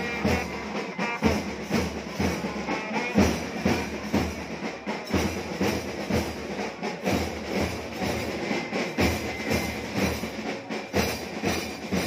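School marching band playing drums and brass: a steady drum beat with trumpets.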